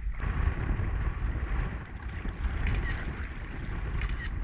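Strong wind on the microphone with choppy water lapping against a kayak.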